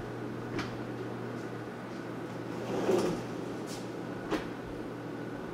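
Wooden kitchen cabinet drawers being opened and pushed shut: a few light knocks and one louder sliding rumble about three seconds in, over a steady low hum.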